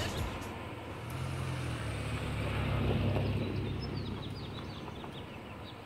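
Hindustan Ambassador car driving on a dirt road, its engine hum growing louder to a peak about three seconds in and then fading. Birds chirp in the background during the second half.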